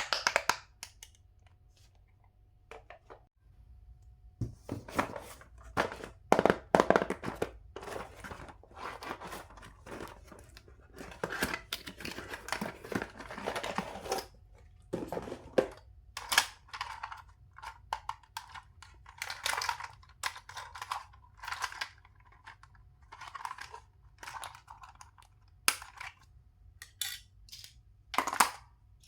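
Toy packaging being handled and opened: irregular tearing and crinkling rustles with sharp clicks and light knocks, starting a few seconds in.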